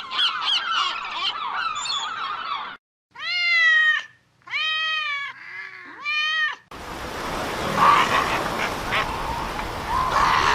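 A string of animal recordings joined by abrupt cuts. First comes a dense chorus of high chirping calls. Then a cat meows three times, each meow about a second long and rising then falling in pitch. Near the end, a hissy recording with short calls, likely ducks, takes over.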